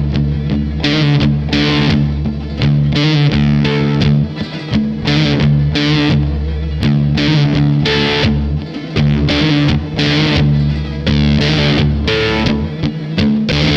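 Electric guitar played through a fuzz effect: distorted, buzzy picked notes and chords ringing over sustained low notes.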